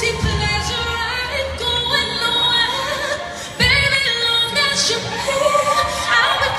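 Song with a female singing voice. The music dips briefly about three and a half seconds in and comes straight back in full.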